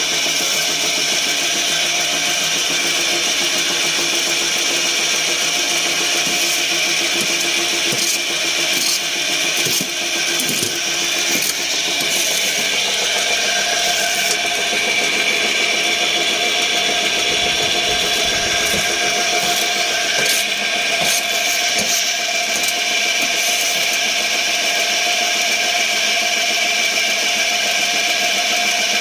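Briquette extruding machine, driven by a 5 hp electric motor, running steadily while it extrudes briquettes: a constant mechanical drone with several steady tones, with a few short clicks and knocks over it about a third of the way in and again past the middle.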